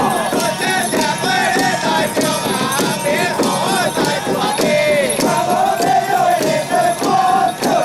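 Handled ritual frame drums beaten in a quick, steady rhythm, with a jingling bell and wavering voices over them: drumming for a Taoist camp-opening rite that summons spirit soldiers.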